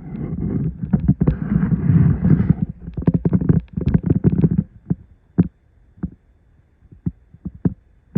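A vehicle jolting along a rough back road: a heavy low rumble with rapid bumps and rattles, breaking up after about four and a half seconds into scattered single knocks.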